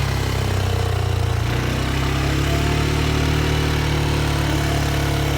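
ATV engine running steadily at low revs, a constant low hum.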